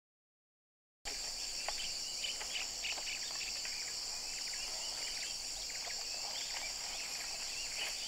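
Silence for about a second, then forest ambience: a steady high-pitched insect drone with many small birds chirping over it.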